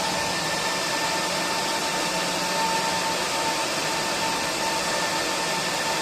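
Mini air-cooled laser welding machine running, its cooling fan making a steady whooshing rush with a steady whine and a low hum.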